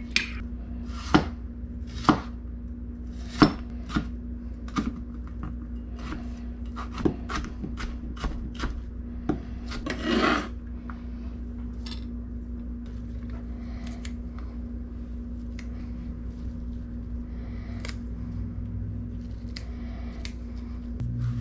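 Kitchen knife chopping vegetables on a plastic cutting board: irregular sharp knocks of the blade, loudest and most frequent over the first few seconds, then sparser and lighter. A brief scraping sound about ten seconds in, all over a steady low hum.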